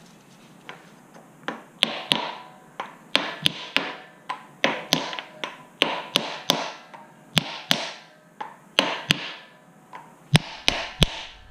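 Brass-headed mallet tapping on a wooden block held against a Porsche 911 flat-six's aluminium camshaft tower: a long run of light, sharp knocks, two or three a second, driving the tower down over its O-rings onto the cylinder heads.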